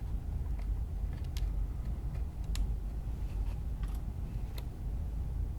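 Scattered light clicks and taps from handling a small M2 screw and driving it into the robot's actuator mount, half a dozen sharp ticks spread over a few seconds, over a steady low hum.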